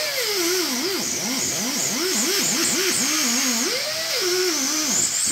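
Ingersoll Rand 90-degree pneumatic angle tool running at speed while buffing an engine's exhaust-manifold gasket surface: a dentist's-drill-like whine over air hiss, its pitch dipping and climbing back again and again as the tool loads against the metal.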